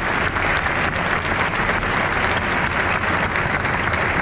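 Audience applauding: many hands clapping at once in a steady, dense, unbroken wash of claps.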